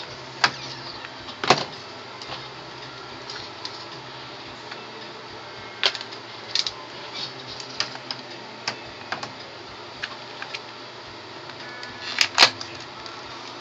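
Scattered clicks and taps of a small SSD retail box being handled and opened, with a cluster of sharper clicks near the end, over a steady background hum.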